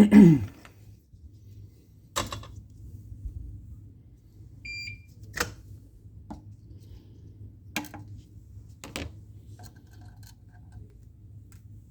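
A soldering station gives a short, single high beep about five seconds in, the signal that the iron has come up to its newly set temperature. Around it are several sharp clicks and knocks of tools being handled, and a loud, brief sound falling in pitch at the very start.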